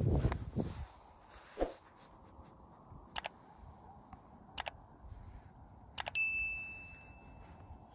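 A low thump and a few sharp clicks, then about six seconds in a single bright metallic ding that rings on and fades over nearly two seconds.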